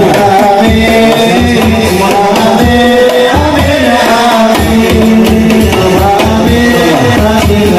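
Hadroh ensemble performing sholawat: several men singing a devotional melody together into microphones over a steady beat of rebana frame drums, amplified through loudspeakers.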